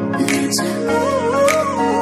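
Background music: an instrumental passage of a Hindi film song, a wavering, ornamented melody over held bass notes with a light beat.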